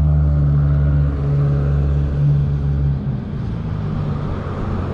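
A nearby motor vehicle's engine running with a steady low drone, which drops away about three seconds in, leaving a fainter traffic rumble.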